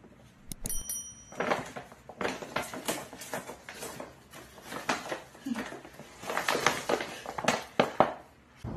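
Stiff paper shopping bag crinkling and rustling in irregular bursts as it is handled and a small dog is put into it. A brief high squeak comes about a second in.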